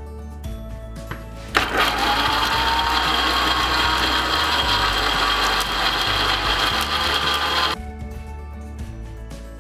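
Electric countertop blender grinding ginger, garlic and spices. It starts abruptly about a second and a half in, its motor pitch rising slightly as it comes up to speed, runs steadily for about six seconds, then stops.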